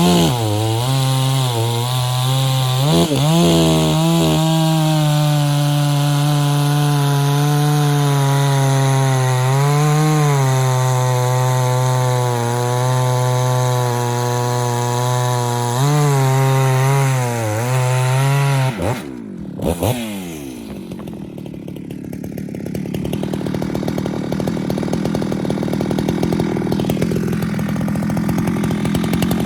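Husqvarna 394XP two-stroke chainsaw with a modded muffler, running loud at high revs, its pitch dipping briefly a few times. About 19 seconds in, the revs fall off sharply. After that the saw runs quieter and rougher, slowly building toward the end.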